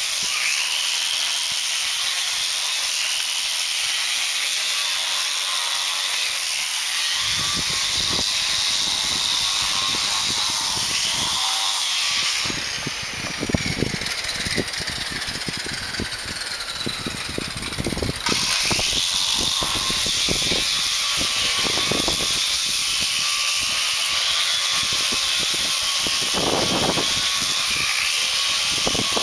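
A handheld electric disc grinder sanding paint off a concrete pool wall, running with a high whine that sags and recovers as the disc is pressed into the wall. Irregular low knocks come in after the first several seconds. For a few seconds in the middle the whine gives way to a slowly falling tone before the grinding sound returns.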